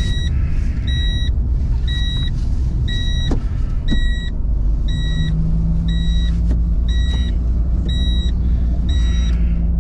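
Car's seatbelt warning chime beeping steadily, about three short beeps every two seconds, over the low rumble of the car driving: a seatbelt is left unbuckled.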